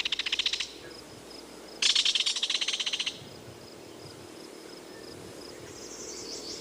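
A wild bird giving fast, rattling chattering trills in short bursts: one ends about half a second in and another runs from about two seconds to three seconds in. Between the bursts a faint steady high insect drone carries on.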